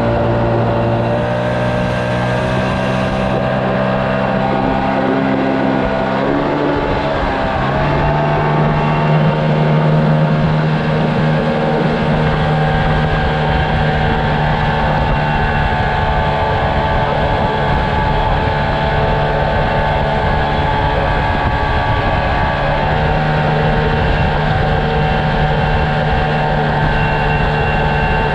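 Mariner outboard motor pushing a soft inflatable boat at speed, running steadily over a rush of wind and water. Its note steps up about seven seconds in and holds there.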